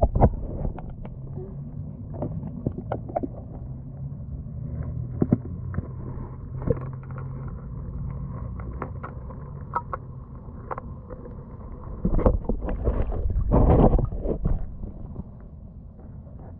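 Muffled underwater sound picked up by a submerged camera in a river: a low, dull wash of water with scattered sharp clicks and knocks, and a louder rush of churning water near the end.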